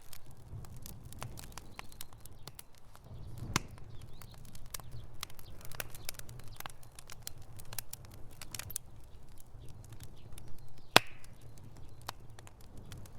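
Campfire burning, wood crackling and popping irregularly over a low steady rumble of the fire, with one louder pop near the end.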